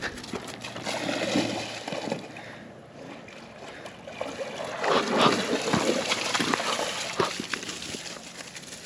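A husky splashing and sloshing through shallow lake water, in two irregular bouts, the second and louder one about five seconds in.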